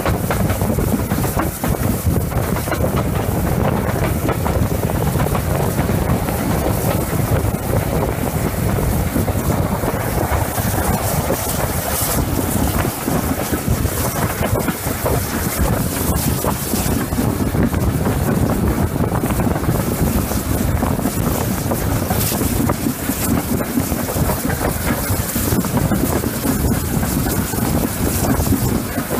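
GWR Small Prairie tank locomotive 5542 running along the line, heard from its cab, with wind buffeting the microphone. A loud, steady rush of wind and running noise with no break.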